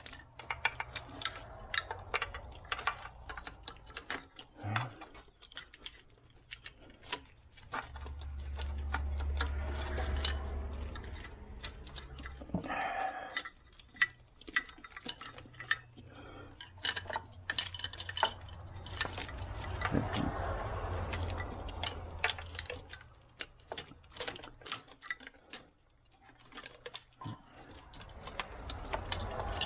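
Metal tools and parts clinking and rattling irregularly as hands work on an engine bay. A low rumble in the background swells up twice.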